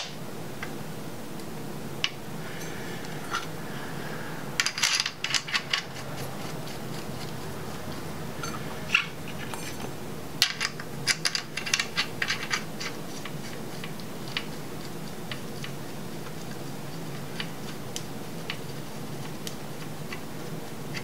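Light metallic clinks and taps of a connecting-rod cap and its bolts being fitted by hand onto a crankshaft journal of an LS 5.3L V8. They come in two short clusters, about five and eleven seconds in, over a steady low hum.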